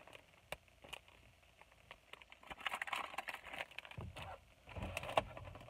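Faint crinkling and rustling of plastic packaging being handled, with scattered light clicks, busier from about halfway through.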